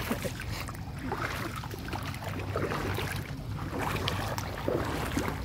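Wind buffeting the microphone in a steady low rumble, with faint moving-water sounds from the flooded canal edge.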